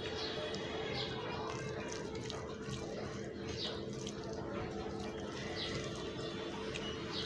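Wet squishing of rice being mixed with fish curry by hand, over a steady hum.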